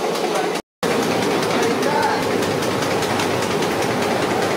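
Steady din of a street-food frying stall: oil sizzling in wide iron kadais and burners running, with a brief silent gap just under a second in.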